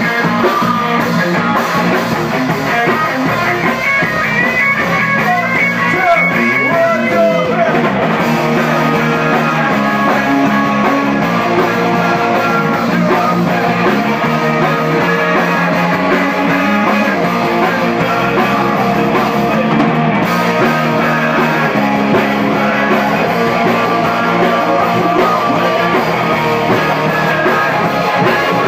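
Live rock band playing loudly: electric guitar and bass guitar over a drum kit. The music changes about eight seconds in, moving into a fuller section.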